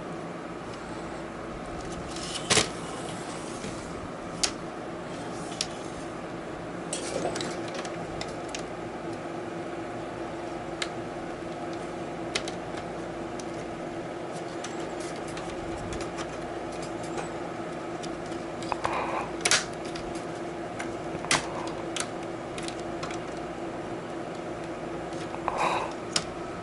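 Sharp plastic clicks and snaps, about ten spread irregularly a few seconds apart, as a laptop's plastic display bezel is pried loose with a small tool and its clips let go, over a steady low hum.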